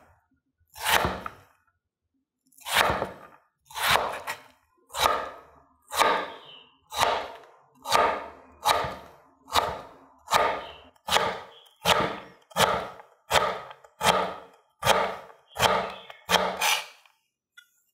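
Chef's knife chopping down through bundles of potato strips, dicing them into small cubes on a wooden cutting board: a regular run of about eighteen single chops that quickens from about one a second to nearly two a second near the end.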